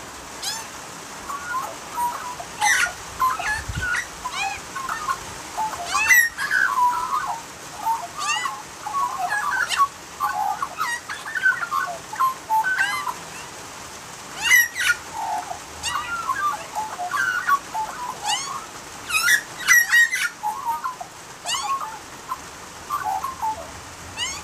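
Australian magpies singing: a continuous jumble of short warbling notes, broken every few seconds by sharp, high sweeping notes.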